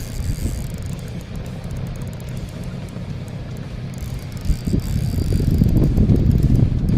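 Fishing reel being cranked against a strong fish, a fine rapid clicking, over a low rumble that grows louder about halfway through.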